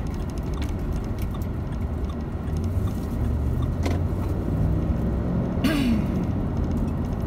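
Steady low rumble of a car driving, heard from inside the cabin, with a single click about four seconds in and a brief higher-pitched chirp near six seconds.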